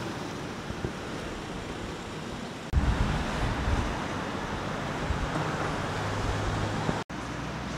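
Steady outdoor traffic noise from a nearby road, with wind rumbling on the microphone. The low rumble grows heavier about three seconds in, and the sound cuts out for an instant near the end.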